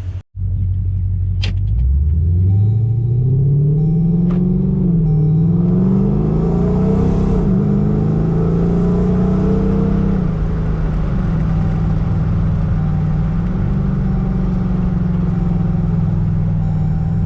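Dodge Durango R/T's 5.7-litre HEMI V8 accelerating away, its pitch rising, dropping back at an upshift about five seconds in and rising again, then settling to a steady cruise from about ten seconds in.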